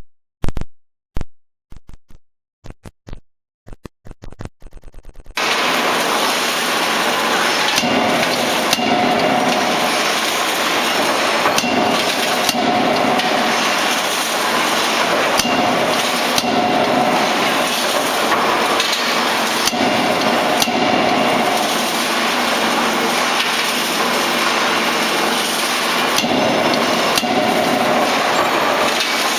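A run of sharp knocks coming quicker and fainter, like something bouncing to rest. Then, from about five seconds in, a 16 kJ hydraulic double-acting forging hammer working: repeated hard blows over loud, steady workshop and hydraulic noise.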